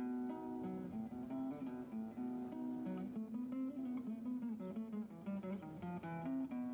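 Soundtrack music led by guitar: a quick, busy run of plucked notes over a held low note.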